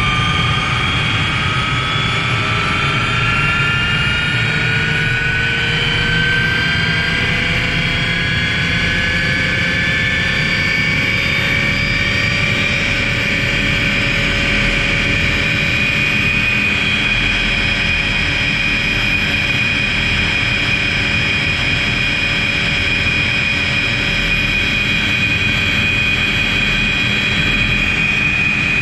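Tour helicopter in flight: steady turbine and rotor noise with a high whine that slowly rises in pitch over the first several seconds, then holds steady.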